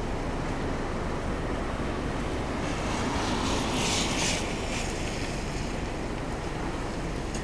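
Blizzard wind rushing and buffeting the microphone, with a louder hissing gust between about three and four and a half seconds in.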